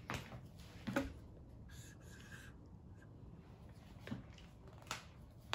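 Faint scratching of a dry-erase marker writing a letter on a small whiteboard, with a few soft clicks and taps of the marker and board.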